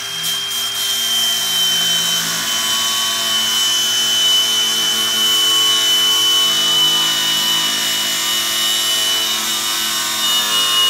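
Angle grinder cutting through metal: a steady high-pitched whine over a harsh grinding hiss, running without a break.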